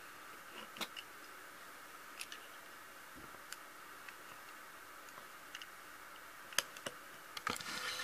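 Scattered small clicks and taps of a die-cast model car and a model car transporter being handled, at irregular intervals over a steady hiss, with a brief burst of handling noise near the end.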